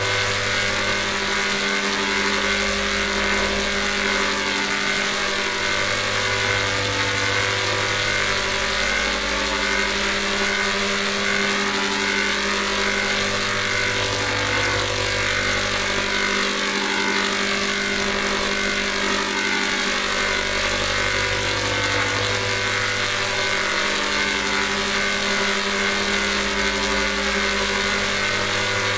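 Heavily processed, layered sound effect: many steady tones stacked over a hissing haze, with a low hum that swells and fades every few seconds.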